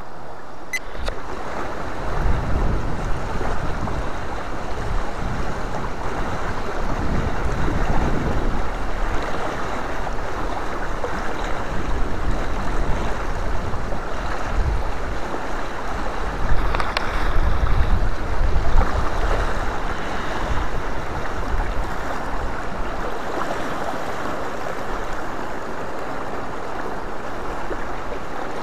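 Fast river current in high water rushing over a stony bed, a steady loud rush, with a few low rumbles on the microphone about two, eight and seventeen seconds in.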